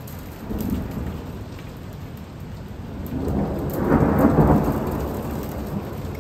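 Thunder rumbling: a short rumble about half a second in, then a longer, louder roll that builds from about three seconds, peaks around four seconds and fades away, over steady rain.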